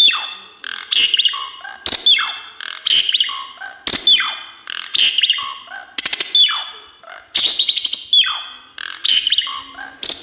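Pied starling (jalak suren) singing a varied song of loud phrases about once a second. Each phrase is built of sharply falling whistles mixed with harsher notes, with short pauses between phrases.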